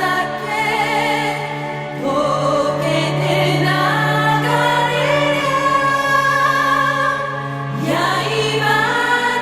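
Background music: sustained choir-like voices over a steady low drone.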